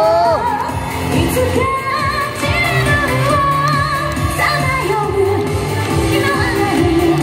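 A woman singing a pop song live into a handheld microphone over a backing track, amplified through stage speakers, with wavering vibrato on held notes.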